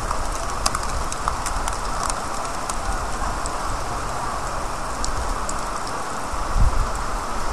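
Steady rain falling on a wet street, with scattered close drips ticking, and a brief low rumble about six and a half seconds in.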